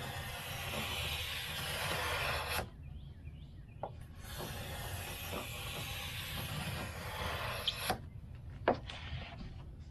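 Utility knife blade dragged through 2-inch foam insulation board along a plywood straightedge: a long scratchy rasp that stops about two and a half seconds in, a second long stroke from about four to eight seconds in, then a couple of short clicks.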